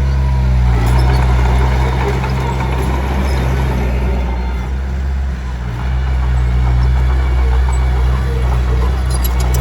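Komatsu D21P bulldozer's diesel engine running steadily under load, with a rough clattering noise of tracks and blade working over stone. The engine note sags briefly just before a second in and again about halfway through, and a few sharp metallic clanks come near the end.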